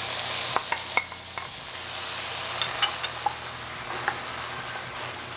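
Chicken pieces sizzling as they are stir-fried in a hot wok, with a wooden spatula scraping and clicking against the pan several times as it tosses them.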